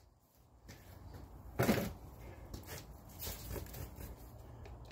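Light handling noises of power tools being put down and picked up: one louder knock about a second and a half in, then scattered small clicks and taps.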